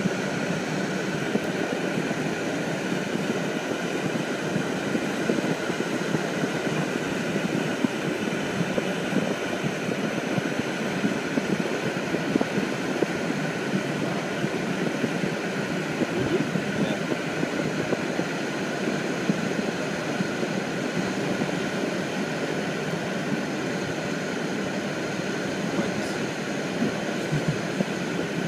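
Steady, even rushing noise that does not let up.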